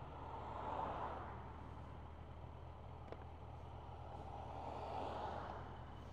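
Road traffic: two vehicles pass, one about a second in and another around five seconds in, each rising and fading over a steady low engine hum.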